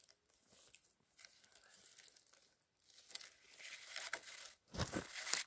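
Cord being pulled tight and wound around the wooden poles of a lashing in a run of rasping swishes, building up and loudest near the end, with a dull bump.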